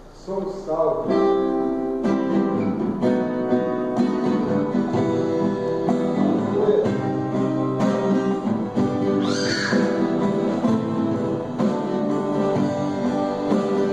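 Live band music: guitar chords sustained over a steady beat, with sharp drum strikes from a drum kit played with sticks.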